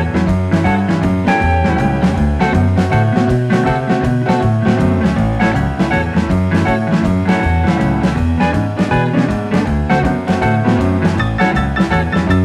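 Background music with a steady beat, guitar and drum kit.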